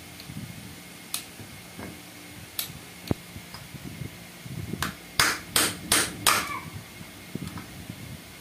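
Hammer striking a punch set against a tractor starter motor's metal end cover. A few light metallic clicks, then four sharp strikes about 0.4 s apart a little past five seconds in, the last one ringing briefly.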